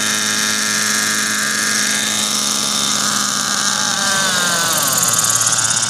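Nitro (glow-fuel) RC helicopter hovering low: a steady high-pitched engine whine with rotor buzz. About four seconds in the engine note slides down in pitch, and a fast pulsing comes in near the end.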